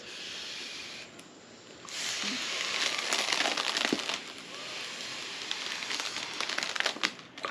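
Breath blown through a straw into a mylar foil letter balloon, the thin foil crinkling and crackling as it fills. There is a short blow, a quieter moment about a second in, then one long breath from about two seconds in almost to the end.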